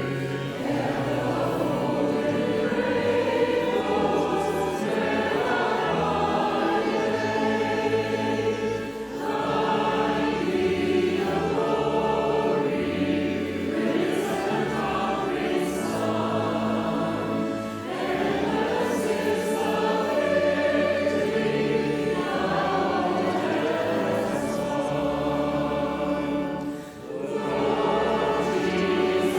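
Choir singing sacred music in slow, sustained phrases, with a brief breath between phrases about every nine seconds.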